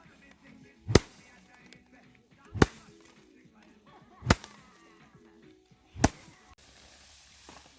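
Four sharp slapping strikes, evenly spaced about one and a half to two seconds apart, typical of rice sheaves being beaten by hand to thresh out the grain.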